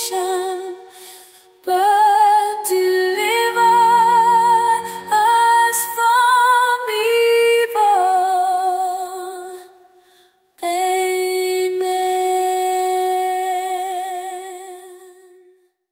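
A woman's voice singing a slow, wordless-sounding devotional melody with vibrato, moving through long sustained notes. It breaks off briefly about ten seconds in, then holds one long note that fades out near the end.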